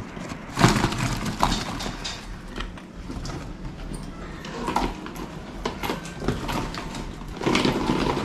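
Crisp fried karanjis (stuffed pastries) being dropped and packed by hand into plastic storage tubs: irregular light knocks and dry rustling of pastry against plastic, loudest about half a second in and near the end.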